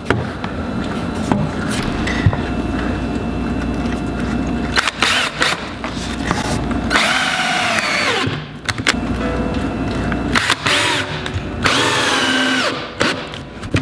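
Cordless drill driving a long screw through a pine 2x4 bottom plate into the wood floor. The motor runs in several pulls of the trigger, its whine rising and falling in pitch.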